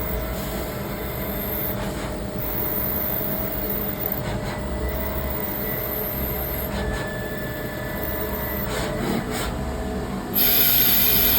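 A CNC lathe turning brass runs steadily with a low hum and a few steady whining tones. About ten seconds in, a loud hiss starts suddenly and carries on.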